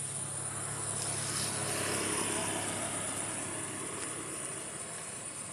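Distant engine noise that swells and then fades, like a motor vehicle going by, over steady high-pitched night insect chirring.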